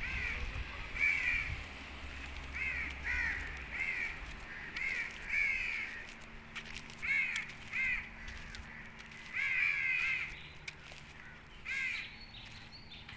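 Birds calling over and over: short, arching calls, irregularly spaced and often in quick pairs, with several birds overlapping at times.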